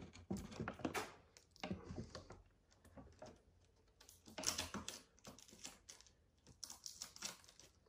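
Light irregular clicking and crinkling of a clear plastic packaging tray as small plastic figure accessories are picked out of it by hand, busier about halfway through and again near the end.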